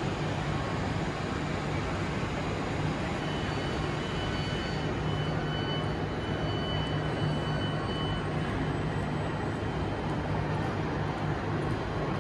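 Steady hum and rumble of a large railway station's train shed beside a standing train. A faint high whine sounds for a few seconds in the middle.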